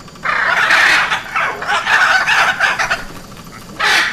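Hyacinth macaws calling loudly: a run of squawks starting shortly after the beginning and lasting about two and a half seconds, then one short squawk near the end.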